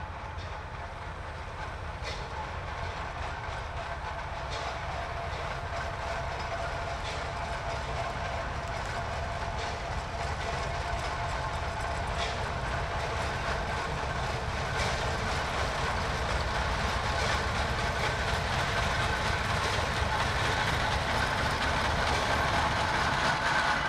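1928 Climax geared steam locomotive working a train uphill toward and past the listener, growing steadily louder as it comes closer. Its running carries a steady whine, with occasional sharp clicks over it.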